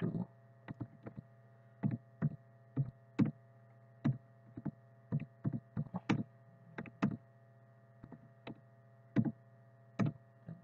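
Computer keyboard being typed on: scattered single keystrokes, about twenty, unevenly spaced, over a steady low electrical hum.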